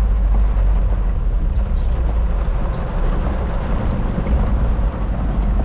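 Isuzu Trooper 4x4 under way: a steady, loud engine and road rumble.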